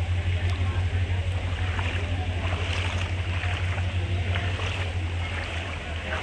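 Floodwater lapping and swishing under a steady low rumble.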